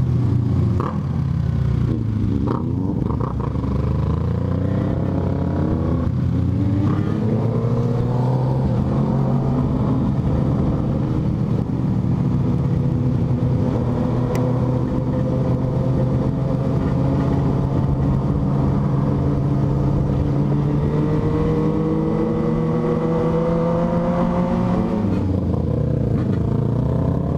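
Motorcycle engine running under way, its pitch rising and falling with the throttle.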